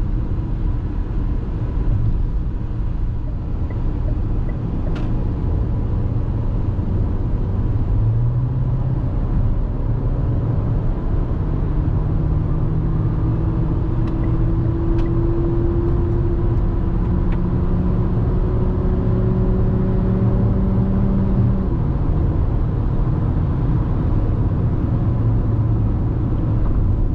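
Beijing X7 SUV heard from inside the cabin on the open road: a steady road and tyre rumble under the engine's drone. The engine note climbs slowly through the middle as the car accelerates, then drops back about four-fifths of the way through.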